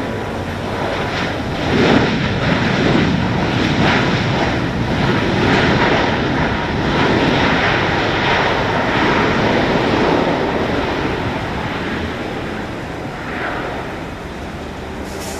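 CFM LEAP-1B jet engines of a Boeing 737 MAX 9 rumbling as it slows and rolls off the runway. The rumble swells about two seconds in and fades over the last few seconds.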